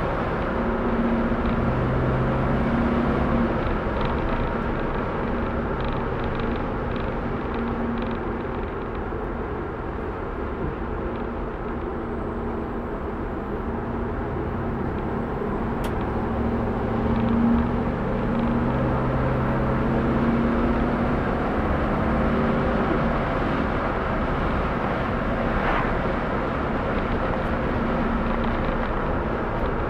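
1964 Chevrolet Impala's 327 V8 and its tyres, heard from inside the cabin while driving at steady speed. The low engine hum swells and eases a little with the throttle.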